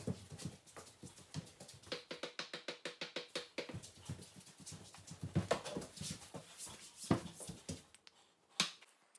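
Quick footsteps on a tiled floor as a person hurries through an indoor course, with a few louder knocks and thumps along the way.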